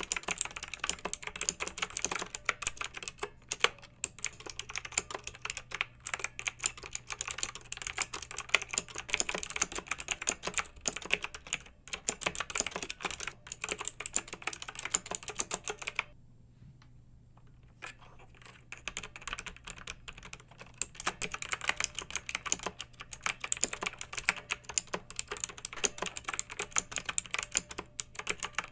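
Computer keyboard being typed on in fast, continuous keystrokes, with a pause of about two seconds a little past the middle.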